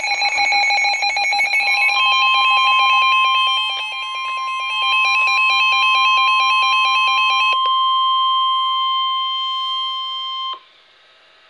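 Emergency weather alert tones: a rapidly pulsing electronic alarm beep, with the National Weather Service's steady single-pitch warning alarm tone joining about two seconds in. The beeping stops about two thirds of the way through. The steady tone holds a few seconds longer and then cuts off abruptly, leaving faint hiss.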